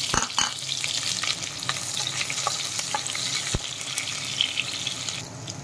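Onion and green chilli pieces sizzling and crackling in hot oil with cumin seeds in a kadai. A wooden spatula stirs them, knocking against the pan a few times. The sizzle eases a little near the end.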